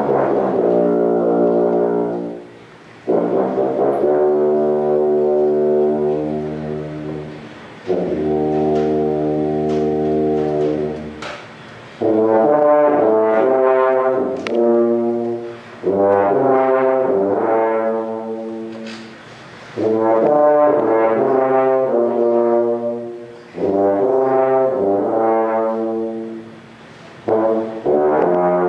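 Concert tuba played solo: long held notes at first, then phrases of quicker-moving notes about twelve seconds in, with short breaks between phrases.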